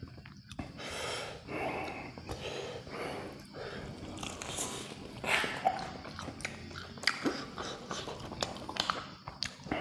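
A person chewing and biting fried chicken close to the microphone, with wet chewing, breathing and a few sharp clicks from bites.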